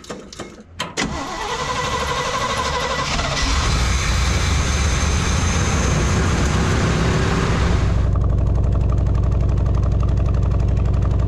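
Chevrolet 400 small-block V8 in a Chevy C50 tow truck firing up for the first time after years of sitting, on fuel poured into its carburetor. It catches about a second in and runs fast for several seconds, then drops to a steady idle about eight seconds in.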